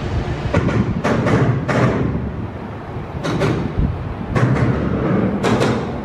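Train rumbling, with pairs of sharp wheel clacks as its bogies cross rail joints.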